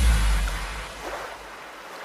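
Background electronic music fading out: a deep bass tail dies away over about the first second and a half, leaving only a faint hiss.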